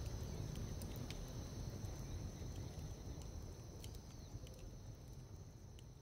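Outdoor nature ambience: a low rumble under a steady high-pitched drone, with scattered faint ticks and a short chirp about four seconds in. The whole bed fades out gradually toward the end.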